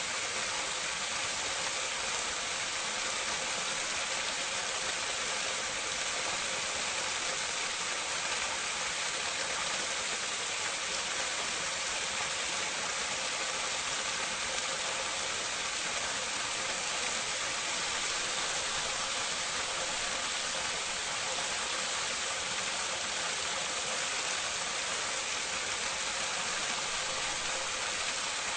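Water pouring steadily into a drain, recorded close up: an even, unbroken rush of falling water.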